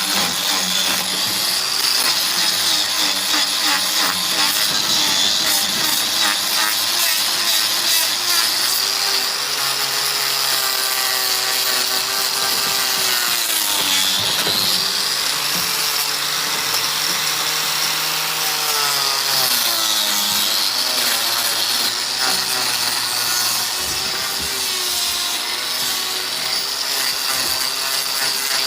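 A power tool running at high speed with a steady whine, its pitch sagging and recovering twice as it is pressed into the work, once about halfway through and again a few seconds later.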